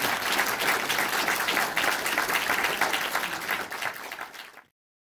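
Audience applauding, the dense clapping thinning out about four seconds in and then cutting off suddenly.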